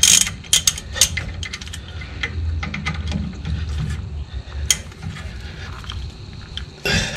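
Metal clicks and clinks of a wrench working a rear brake caliper bolt loose, coming irregularly, with the sharpest ones at the start and a quick cluster near the end.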